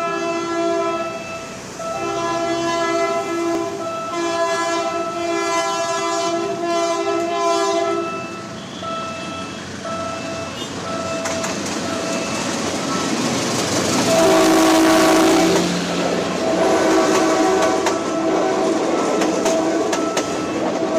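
Commuter train horn sounding in repeated long blasts as the train approaches, with a rising rumble as it draws near. The loudest blast comes a little past the middle. Near the end the coaches pass close by with wheels clattering over the rail joints, while the horn sounds on.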